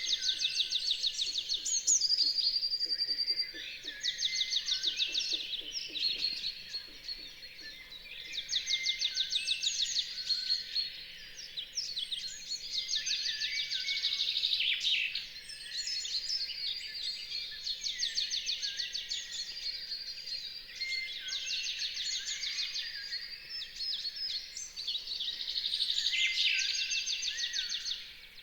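A dawn chorus: many songbirds singing at once, with overlapping rapid trills and whistled phrases that come and go in waves.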